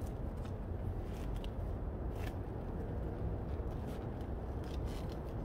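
Steady low outdoor rumble with a few scattered light clicks and rustles from plastic food packaging and tableware being handled beside a grill.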